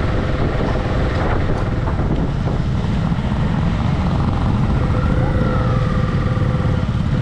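Motorcycle engine running steadily while riding, mixed with wind rumbling on the microphone. A faint wavering tone rises and falls about five seconds in.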